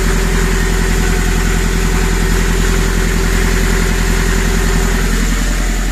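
Nanni marine diesel engine idling steadily, heard up close through its open engine compartment, running evenly as it should.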